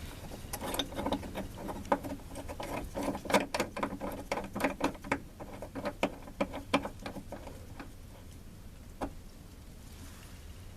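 Irregular light clicks and taps of metal hardware as the truck's door striker, with its new bushing and insulator, is fitted and threaded back in. The clicking runs for about seven seconds, then one single click comes near the end.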